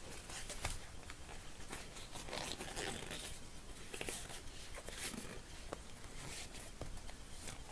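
Hands rubbing and handling a bicycle tyre and inner tube, an irregular scratchy friction with a few small clicks, as the tyre is checked by feel for the cause of the puncture.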